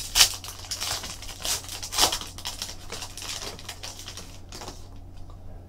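Plastic and foil wrapping of a trading card pack crinkling and tearing as it is pulled open, with cards and cardboard being handled. There are sharper rustles near the start and about two seconds in, and the handling goes quieter in the last second or so.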